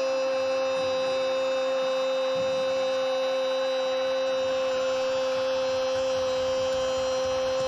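A steady electronic hum-like tone, one unchanging pitch with many overtones, over a faint noisy background.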